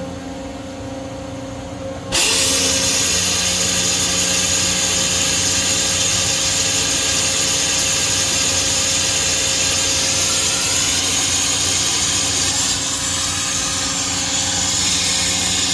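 Toshiba MPC-2565A double-column gantry CNC milling machine running with a steady hum; about two seconds in, a loud hissing rush with a thin high whistle in it starts abruptly and carries on.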